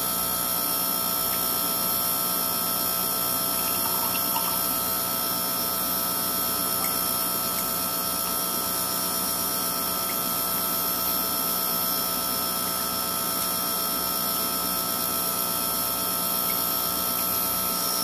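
Steady electrical buzz of a Frantz magnetic separator running, several fixed tones held at an unchanging level.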